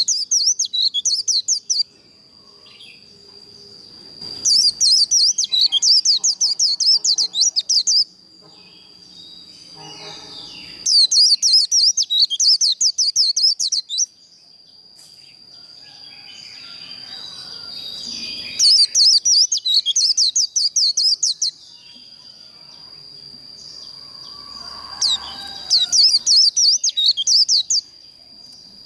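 White-eye (vành khuyên) singing its rapid, high 'líu' warbling song in five bursts of about three seconds each, separated by pauses of several seconds. A steady high whine runs underneath.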